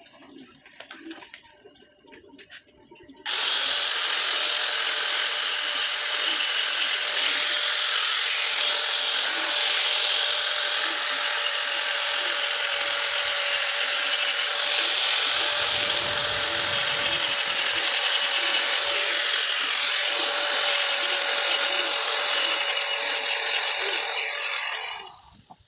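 Electric arc welding on a metal frame: the arc strikes about three seconds in, holds a steady, even hiss for about twenty seconds, then cuts off near the end.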